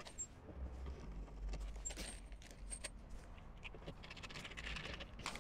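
Faint scattered metallic clicks and scrapes of a screwdriver and stainless steel screws being handled, and a screw being turned into a tail light.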